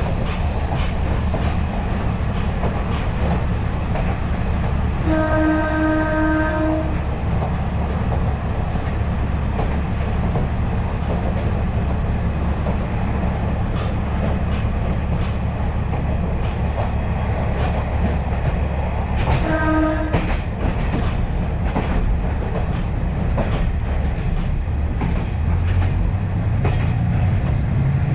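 Inside a KiHa 40 series diesel railcar running at speed: steady diesel engine and wheel-on-rail noise with clickety-clack from the track. The train's horn sounds twice, one blast of about two seconds around five seconds in and a short toot around twenty seconds in; near the end the engine note grows louder and rises.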